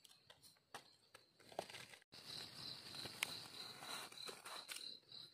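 Faint rustling and scraping of a knife blade working in soil and dry leaf litter while a mushroom is dug out. From about two seconds in, an insect chirps in a steady high pulse behind it.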